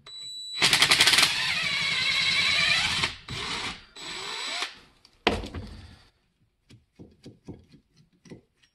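Cordless drill driving a hex bit into a screw in a metal housing, running in two bursts of about two and a half seconds and then a second and a half, its pitch sagging and recovering under load. A sharp metal knock follows about five seconds in, then light clicks as the parts are handled.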